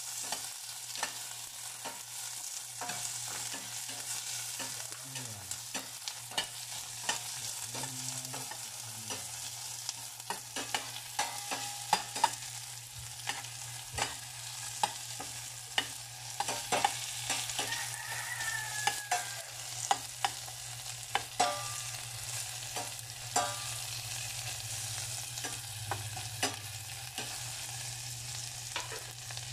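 Sliced onions frying in a stainless steel saucepan with a steady sizzle, while a spoon stirs them, clicking and scraping against the pan many times at irregular intervals, most often in the middle of the stretch. A steady low hum runs underneath.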